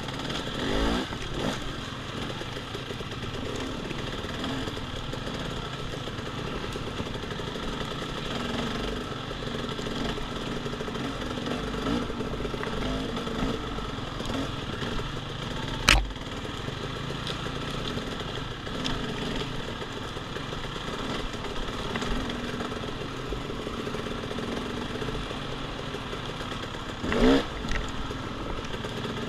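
Dirt bike engine running at low revs, with short revs about a second in and again near the end. A single sharp knock comes about halfway.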